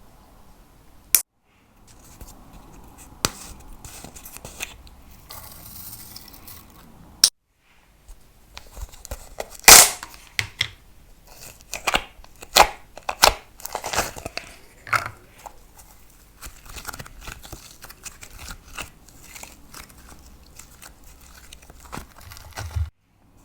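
Slime being worked by hand, with sticky, crackling clicks and pops of varying loudness, densest in the middle; the sound drops out briefly at a few edit cuts.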